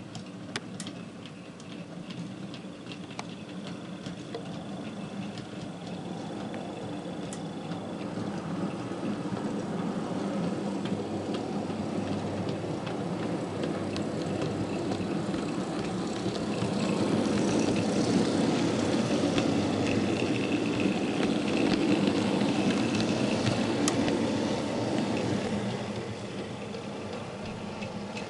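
OO gauge model train, two Class 37-type diesel locomotives with a short rake of mineral wagons, running along the layout track: a steady mechanical hum with scattered clicks. It grows louder as the train approaches and drops off about 25 seconds in.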